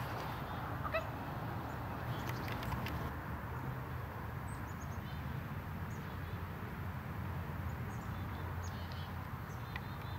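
Outdoor ambience: a steady low rumble with scattered faint, short bird chirps and a few light clicks.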